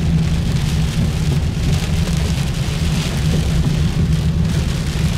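Rain on a moving car, heard from inside the cabin: a steady hiss of rain and wet-road tyre spray over a steady low rumble of the car driving.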